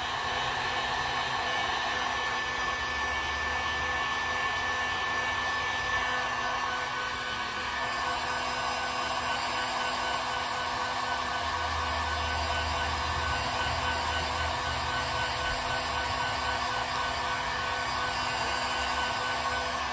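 Hot-air blower running steadily, drying freshly airbrushed water-based paint on a crankbait so it can be heat set. Its faint whine drops slightly in pitch about six seconds in.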